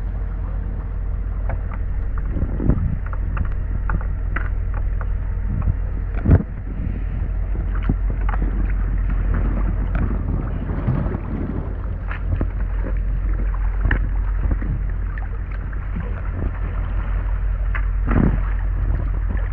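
Creek water lapping and splashing just below the microphone of a tube floating downstream, over a steady low rumble. Short sharper splashes come every second or two, the loudest about six seconds in and another near the end.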